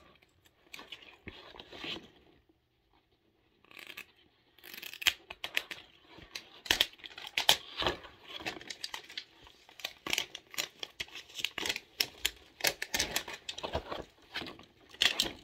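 Toy packaging being torn open and crinkled by hand. Some faint rustling and a quiet pause come first, then from about four seconds in a busy run of rustles and sharp crackles.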